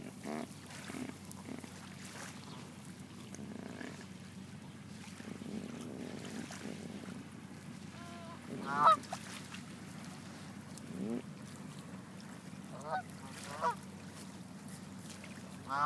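Canada geese honking: a few separate honks, the loudest about nine seconds in, two more close together a few seconds later and another at the very end.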